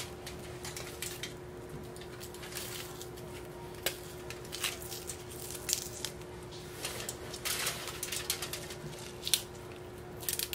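Aluminium foil crinkling and rustling in short, scattered bursts as herbs and green onion are laid on it by hand, over a steady faint hum.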